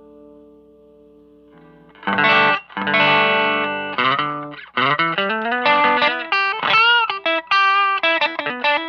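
Electric guitar played through a Hotone Nano Legacy Eagle's Heart mini amp head with a distorted tone. A held chord fades out, a new chord is struck about two seconds in, then a lead line of single notes follows with string bends and vibrato.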